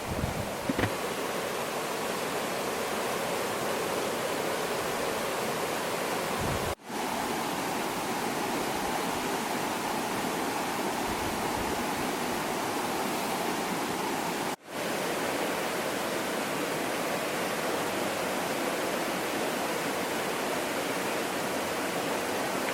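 Steady rushing sound of flowing water, with no distinct events. It cuts out for a split second twice and comes straight back.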